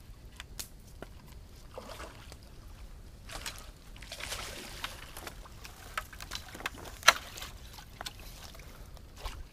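Water sloshing and splashing as a hooked bowfin is landed at the bank, mixed with scattered sharp clicks and knocks. The loudest click comes about seven seconds in.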